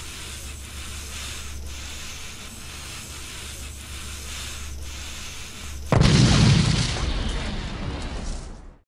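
Lit fuse fizzing with a steady hiss over a low hum, then a loud explosion about six seconds in that dies away over the next few seconds.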